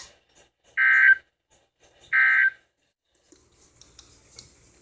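NOAA Weather Radio's Emergency Alert System end-of-message data bursts. The tail of one burst is followed by two more short, loud bursts about a second apart. From about three seconds in there is only faint radio hiss.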